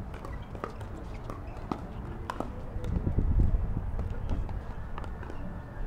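Pickleball rally: several sharp pops of paddles striking the plastic ball, spaced irregularly, over steady outdoor background noise, with a low rumble about three seconds in.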